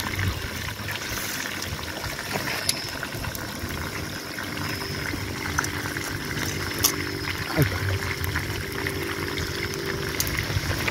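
Fish frying in oil in a pan over an open wood fire: a steady sizzle with the fire crackling, and a few short sharp clicks as metal tongs push the burning sticks and embers about.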